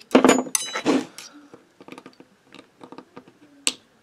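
Steel parts of a moped variator/clutch assembly clinking as a retaining circlip is worked on with pliers: a few ringing clinks in the first second, light ticks, then a sharp click near the end. The circlip is not seating.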